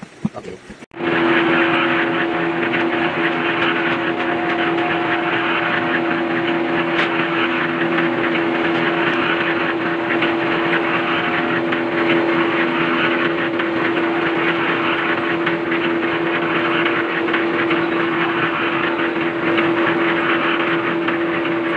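Small motor-driven drum mixer of the cement-mixer kind running with shrimp feed tumbling inside: a steady motor hum under a constant rushing rattle. It starts abruptly about a second in.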